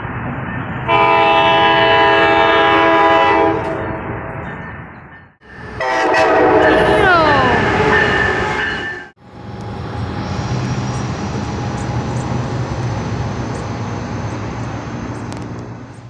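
Coaster commuter train horns, five-chime K5LA air horns: a loud chord blast lasting about two and a half seconds, then a second blast whose notes slide down in pitch as it ends. After that a train runs past with a steady rumble.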